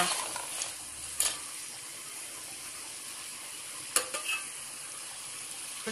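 Chicken pieces frying in masala in a metal pot, a steady sizzle, with a ladle stirring and scraping against the pot in a couple of sharp clicks, about a second in and near four seconds.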